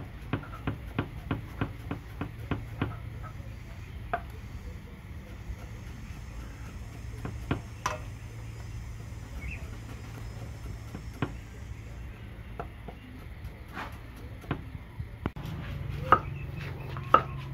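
A cleaver chopping winter melon on a round wooden chopping block. It starts with a quick run of sharp knocks, about four a second, then slows to scattered single chops, with two louder knocks near the end.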